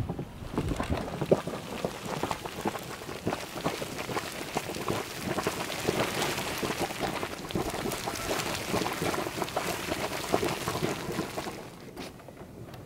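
Hot spring vent boiling vigorously, its water churning and splashing in a dense crackling patter that stops sharply near the end.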